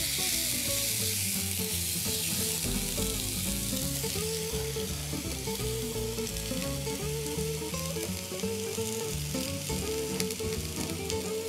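Raw ground bison patty sizzling on a hot ridged grill pan just after being laid down, a steady hiss that is strongest in the first few seconds and eases a little after. Background music plays underneath.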